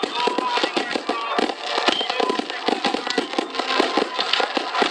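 Fireworks crackling and popping in a dense, rapid string of small bangs.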